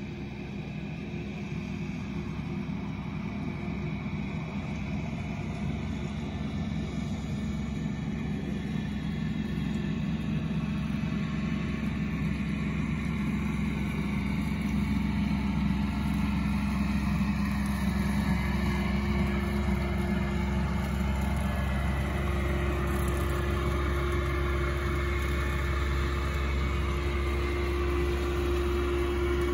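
Tractor engine running steadily with a bush hog rotary cutter hitched behind, growing gradually louder as it comes closer.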